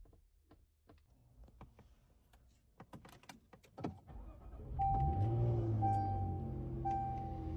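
Faint metallic clicks and rattles of handcuffs and restraint chain being worked. About four seconds in, a low electronic drone rises in with a short steady beep about once a second, a backing music track.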